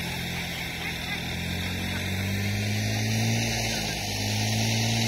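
A lure coursing machine's motor runs steadily, pulling the lure line, with a steady hiss over it. Its pitch rises a little about two seconds in and again near the end.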